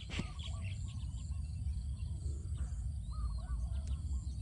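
Faint birds calling in short chirps and brief curved notes, over a steady low rumble.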